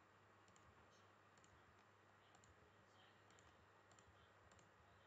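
Faint computer mouse clicks, many in quick pairs, over a near-silent background with a low steady hum.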